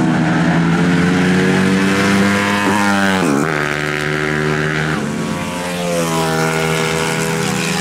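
CG300-class racing motorcycle engine running hard at high revs. Its pitch drops sharply about three seconds in and climbs again, with another dip and rise about five seconds in.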